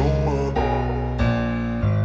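Background music: sustained bass and keyboard chords changing about every half second to second, the track winding down after its vocals end.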